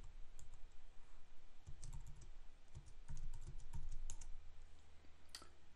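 Computer keyboard typing: irregular runs of key clicks as code is entered, with short pauses between bursts.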